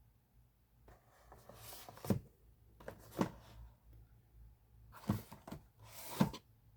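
A boxed plastic toy handled and turned over: rustling of the packaging with four soft knocks.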